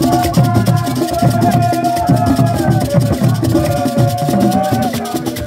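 Borborbor music: tall Ewe barrel drums beaten by hand in a fast, steady rhythm, with hand clapping, a shaken rattle and a group singing long held lines over the drums.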